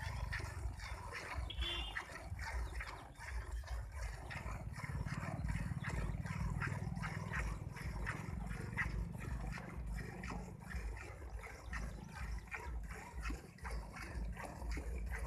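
Cow being milked by hand: rhythmic squirts of milk striking a pail, several strokes a second, over a low rumble.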